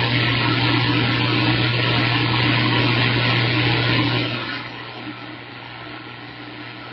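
CB radio receiver hissing loudly with a steady low hum while a station holds its transmitter keyed without speaking. About four seconds in, the carrier drops and only quieter background static remains.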